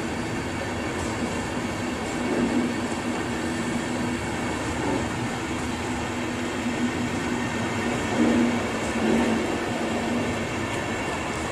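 Passenger coaches of a train rolling past along a station platform: a steady running noise with a low hum and small swells in level.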